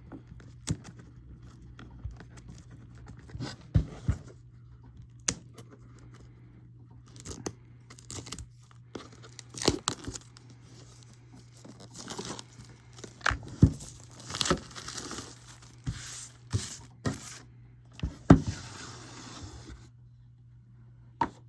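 Packaging of a boxed Blu-ray set being torn open and crinkled while it is unwrapped by hand, with scattered sharp clicks and knocks of handling and longer bursts of rustling, the longest about two thirds of the way through. A faint steady low hum runs underneath.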